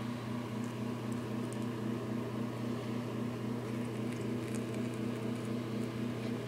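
A small motor's steady hum with a quick pulsing beat, about three pulses a second, over a faint even hiss.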